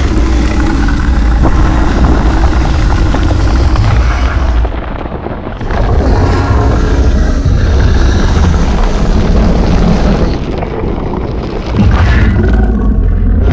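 Designed giant-worm monster sound effect: a loud, deep rumbling roar with growling layers over it. It eases off briefly about five seconds in and again near the end, then swells back.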